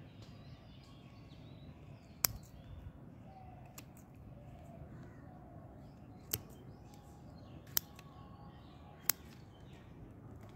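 Yellow-handled pruning shears snipping through thin twigs of a peepal (sacred fig) bonsai: four sharp snips a second or two apart, the first about two seconds in, plus a fainter one.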